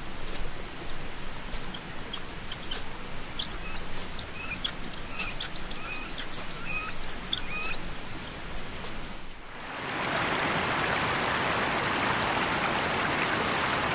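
Birds chirping and calling in short repeated whistles over a soft outdoor hiss; about ten seconds in, the steady rush of a river abruptly takes over.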